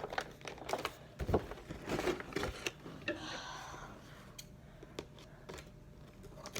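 Handling and opening of action figure packaging: scattered clicks and rustles, a few dull thumps, and a longer scraping, tearing noise about three seconds in.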